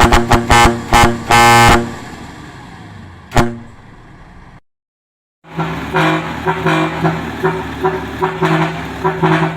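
Musical vehicle horn playing a fast run of short blaring notes that ends on a held note about two seconds in, followed by a sharp click. After a brief gap a second, quieter horn sequence starts, sounding a low note in repeating pulses.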